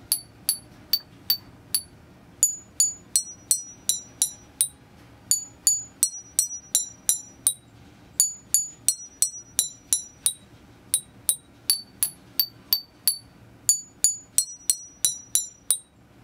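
A metal spoon tapping a row of glass test tubes filled with water to different levels, played as a homemade liquid xylophone picking out a simple tune. Each tap gives a short, clear glass ring at one of several pitches, with the fuller tubes giving the lower notes.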